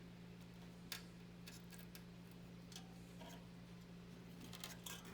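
Faint clicks and handling noises of a power cable being worked toward the motherboard's CPU power connector inside a PC case, over a steady low hum. One sharper click comes about a second in and a few more near the end.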